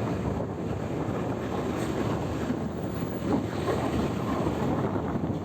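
Steady rumble of a bus on the move, mixed with wind buffeting the microphone.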